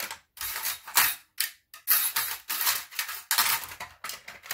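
Small hard tools clattering and rustling as a set of polymer clay cutters is rummaged through, in a quick, irregular run of clicks and rattles.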